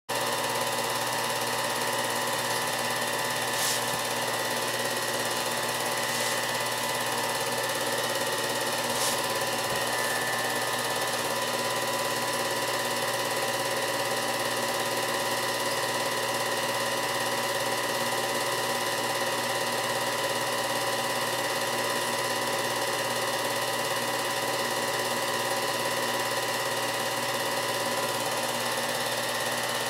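Film projector running: a steady mechanical whir with a constant hum, and a couple of faint ticks early in the reel.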